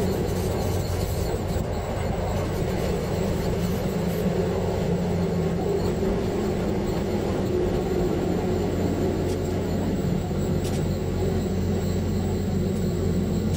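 KTR700-series diesel railcar running along the line: a steady low drone of engine and wheel-on-rail noise.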